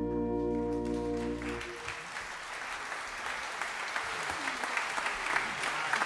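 A concert band's final held chord cuts off about one and a half seconds in, and audience applause takes over.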